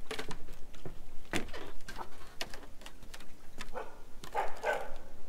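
Footsteps of a walker stepping off a wooden boardwalk onto a gravel path, about two steps a second, with a louder scuffing step near the end.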